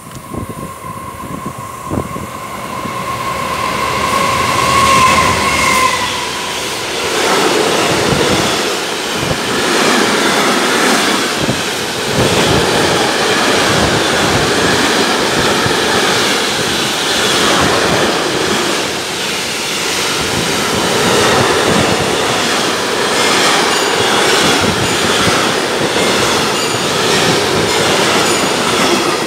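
Container freight train wagons running past close by, a loud rumble with a rapid, uneven clatter of wheels over the rails. A steady high wheel squeal sounds over the first six seconds or so, then fades out.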